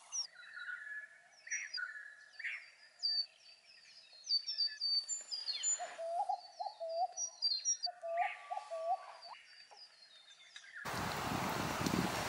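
Several birds calling: quick high chirps and trills throughout, with a repeated lower hooked whistle partway through. About a second before the end a steady rushing noise comes in.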